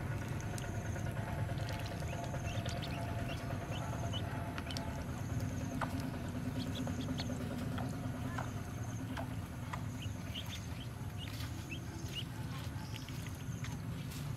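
Yellow ducklings peeping now and then in short, scattered chirps over a steady low hum.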